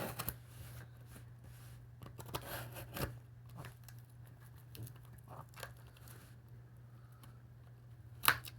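A box being opened by hand: scattered tearing and crinkling of packaging with small clicks, and one sharp, loud click near the end, over a steady low hum.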